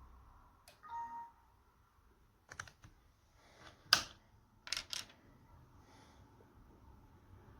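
A short electronic beep about a second in, then several sharp, separate clicks, like computer keys or a mouse button being pressed, the loudest about four seconds in.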